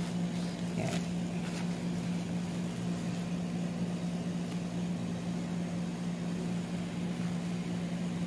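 Steady low hum of a running household appliance, with a few faint rustles of a disposable diaper being handled about a second in.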